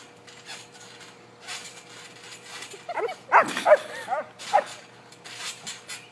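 A dog giving a quick run of short yips and barks about halfway through, after a few faint clicks and rustles.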